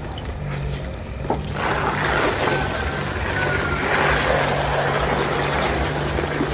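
Water gushing and splashing, growing louder about one and a half seconds in, over a steady low hum.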